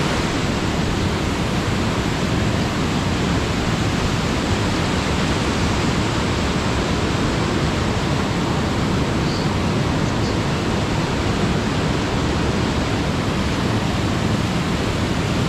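Rushing water of a stream and small waterfall, one steady even rush with no break.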